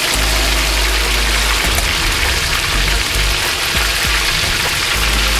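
Battered chicken pieces deep-frying in hot oil in a wok, a steady loud sizzle and bubbling. This is the second fry, done to crisp the chicken.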